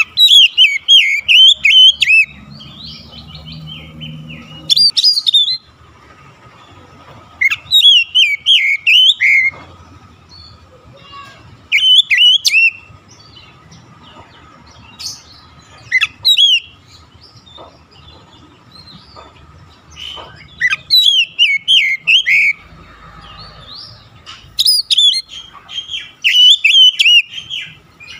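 Male oriental magpie-robin singing: loud phrases of rapid, varied whistles and chirps, each about one to two seconds long, broken by short pauses.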